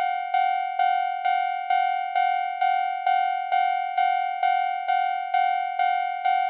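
Japanese railroad crossing warning bell ringing 'kan-kan', struck evenly about twice a second, each stroke a bright ringing tone that carries into the next.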